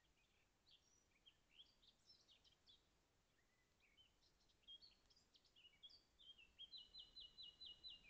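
Songbird singing: a run of varied, high, quick chirps and twitters, ending in a fast series of about seven repeated notes near the end.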